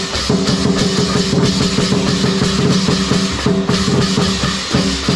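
Lion-dance percussion: a large drum beaten in a fast, driving rhythm, with cymbals clashing throughout.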